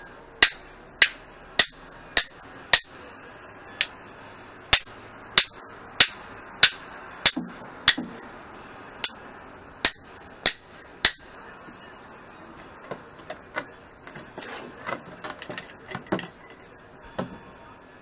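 Claw hammer striking a steel rod-and-disc part, about a blow and a half a second, each with a high metallic ring. About eleven seconds in the blows stop and lighter scattered knocks and clinks follow.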